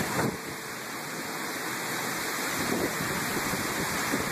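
Heavy thunderstorm rain pouring down: a steady, dense hiss of downpour.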